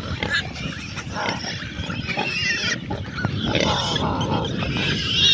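Pigs grunting and squealing, several animals calling over one another.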